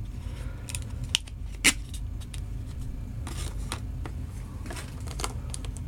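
Light clicks and rattles of small end mills in their wrappers being handled in a tool drawer, a few separate ticks spread through, over a low steady hum.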